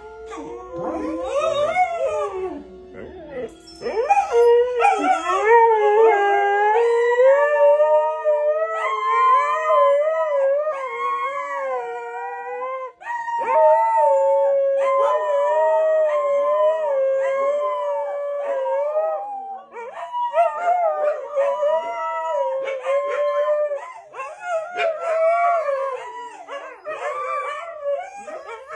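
Several dogs howling together, a husky and a beagle among them: long wavering howls that overlap in a chorus, sliding up and down in pitch, with a few short breaks.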